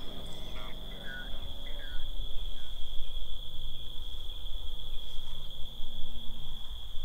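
Night insects chirring in one steady, unbroken high-pitched tone, over a low rumble.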